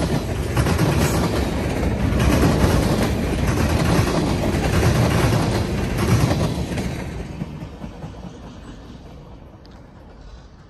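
Freight train cars rolling past at close range, their wheels clicking over rail joints about once a second. The sound fades away from about six and a half seconds in as the last car goes by.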